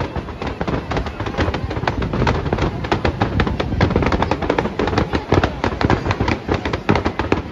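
Fireworks display: a rapid barrage of shells bursting, a dense run of bangs and crackles many times a second, growing a little louder in the second half.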